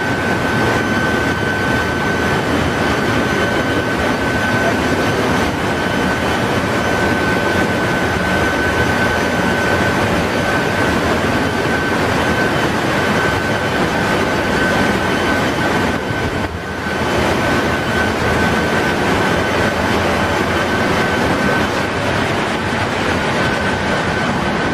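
Ship's engine room machinery running: a loud, steady mechanical noise with a constant high whine through it, dipping briefly about two-thirds of the way through.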